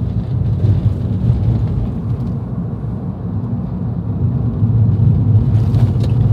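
A car driving, a steady low rumble of engine and road noise that grows a little louder near the end.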